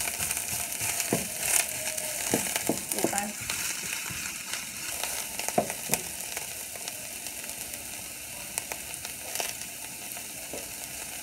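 Sliced onions sizzling in olive oil in a stainless steel skillet over low heat, at the start of caramelizing. A wooden spoon knocks against the pan several times while stirring in the first half, then only the steady sizzle remains.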